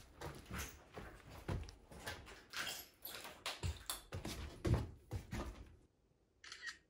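Footsteps and handling noise from a handheld camera: irregular low thumps about once a second with rustling between them. The sound cuts to silence about six seconds in, followed by one short burst of hiss just before the end.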